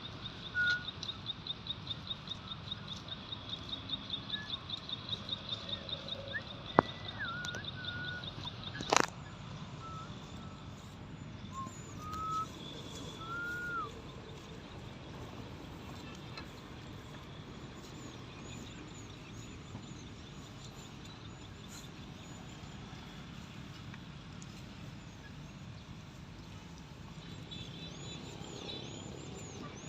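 Outdoor farm ambience with birds calling: a rapid pulsing high trill for the first nine seconds, short whistled calls, and faint repeated high chirps later on. A sharp click comes about seven seconds in and a louder sharp knock about nine seconds in.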